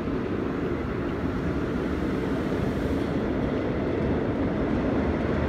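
Korail Seoul Subway Line 1 electric train pulling out of the station behind closed platform screen doors: a steady rumble of wheels and traction motors that grows slightly louder as it gathers speed.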